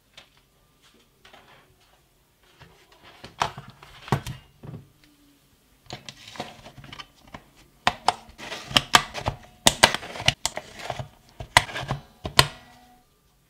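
Sony VTC6 18650 lithium-ion cells clicking and clattering as they are handled and snapped one by one into the spring-loaded slots of a MiBoxer C8 eight-bay charger. The sharp clicks come irregularly, thickest in the second half.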